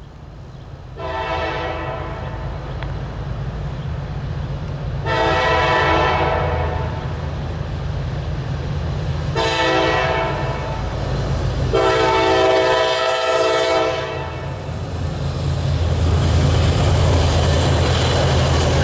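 Approaching Norfolk Southern diesel freight locomotive sounding its multi-chime air horn in four blasts, the third short and the last held longest: the long-long-short-long pattern blown for a grade crossing. Beneath it the locomotive's engine and the train run as a low, steady rumble that grows louder near the end as it draws close.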